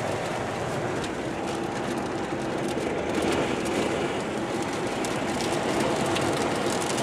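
Strong inflow wind rushing steadily into a severe thunderstorm and buffeting the microphone, with a few faint ticks scattered through it.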